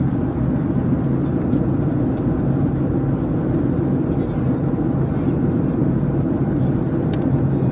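Steady drone of a jet airliner's cabin noise, engines and rushing air, even and low-pitched throughout.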